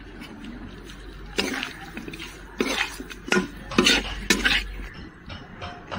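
A spoon stirring chicken pieces in a metal kadai, scraping and clinking against the pan about five times in the second half.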